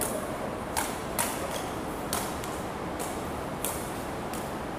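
About half a dozen short, sharp clicks at uneven intervals over a steady background hiss.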